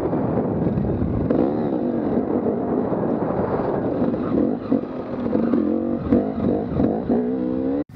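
Dirt bike engine heard from the rider's own machine, its pitch rising and falling again and again as the throttle is worked along a rough trail. It cuts off abruptly just before the end.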